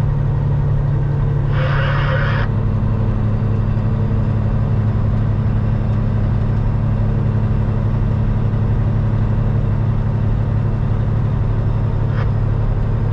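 Cab interior of a 2006 Peterbilt 379 at highway cruise: the CAT C15 diesel engine runs at a steady low drone, with road noise. A short burst of hiss comes in about two seconds in.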